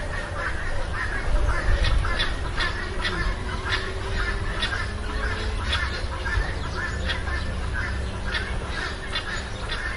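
Many birds chirping and calling together, with quick sharp chirps over a dense background of calls, and a steady low rumble underneath.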